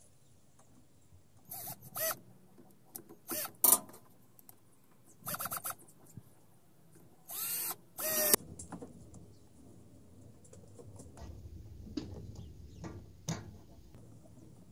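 Four short bursts of a small power tool running, the last about a second long, followed by light clicks and handling noise.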